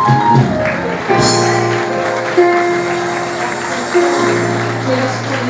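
Live band music: long held chords over a steady bass guitar line, with a bright metallic shimmer coming in about a second in.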